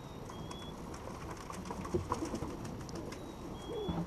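Pigeons cooing, with a few soft clicks and a short faint high note twice, about half a second in and near the end.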